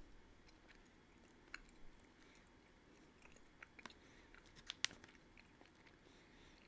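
Faint chewing of soft fruit gummies, with a few short wet clicks from the mouth; the loudest comes a little before five seconds in.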